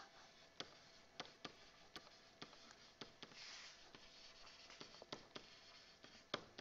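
Faint, irregular taps and scratches of a stylus writing on a tablet screen. A short scratchy stroke comes about halfway through, and the sharpest tap comes near the end.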